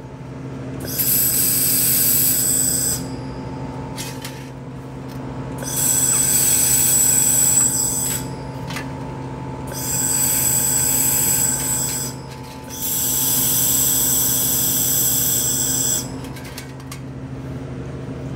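Handheld laser welder firing on stainless steel in four bursts of two to three seconds each, a high hissing buzz, over the steady hum of the welding machine.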